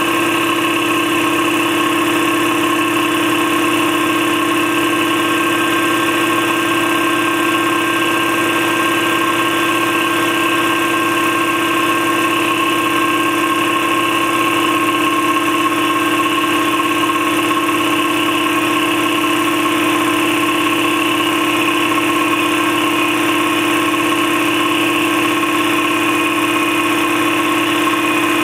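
Campbell Hausfeld 60-gallon air compressor, its 230-volt single-phase electric motor driving a twin-piston pump, running steadily without a break as it pumps up tank pressure.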